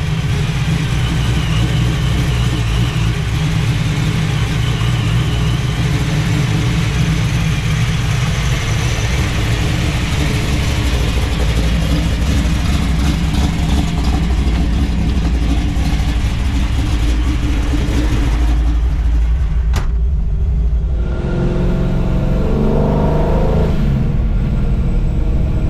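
Classic car with a custom-built exhaust under way, engine running steadily under road noise. About twenty seconds in the sound eases off briefly, then the exhaust note climbs in pitch as the car accelerates again.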